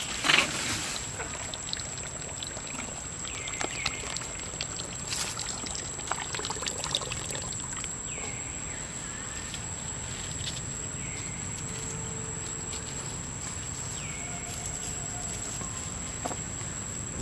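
Outdoor forest ambience: a steady thin high-pitched whine, with short downward-falling calls repeating every second or two. A few clicks and bumps come near the start.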